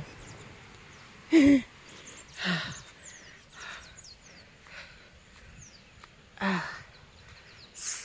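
A woman breathing hard with short voiced gasps and sighs, about five of them, the loudest about a second and a half in: out of breath from climbing a steep slope. Faint bird chirps in the background.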